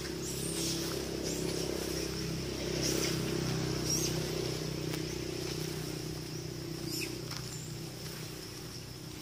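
Outdoor ambience: a steady low hum and a steady high-pitched drone, with a few short, high chirps scattered through.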